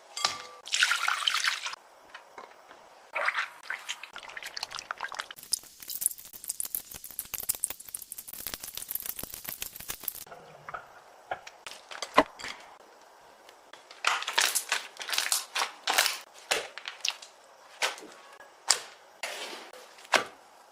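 Slime being squished and worked by hand, with irregular wet clicks and pops. A dense run of crackling comes in the middle.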